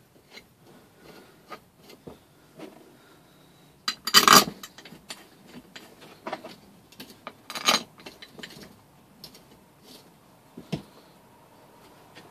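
A socket ratchet clicking in short runs, with light metal clinks, as the cylinder head bolts of a 3 hp small engine are tightened in a star pattern. Two louder, longer runs of clicking come about four and eight seconds in.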